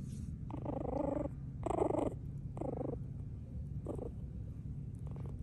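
Young puppy vocalizing in four short cries over about four seconds, the first two the longest and loudest, the last one brief.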